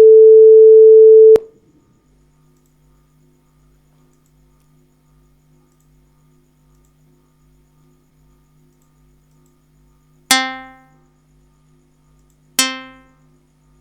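Audacity's generated sounds playing back: a loud steady electronic beep that stops about a second and a half in, then two synthesized plucked-string notes of the same pitch, a couple of seconds apart, each struck sharply and dying away over about a second.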